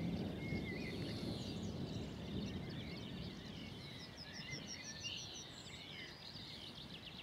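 Distant thunder rumbling and slowly dying away, under birdsong that includes a yellowhammer's song of quickly repeated high notes.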